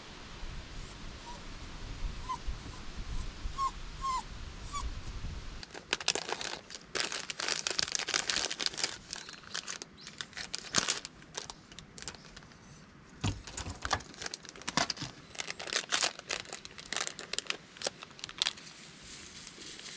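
Crinkling and rustling of a foil seasoning sachet being handled and torn open, as a rapid irregular crackle starting about six seconds in. Before that, a low rumble with a few faint short chirps.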